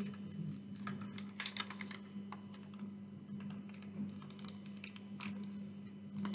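Irregular light clicks and ticks of fingers handling a small object close to the microphone, over a steady low hum.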